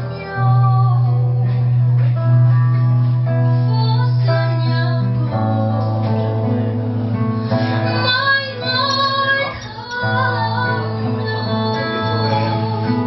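A woman singing a slow ballad to a fingered acoustic guitar accompaniment, with held low guitar notes underneath.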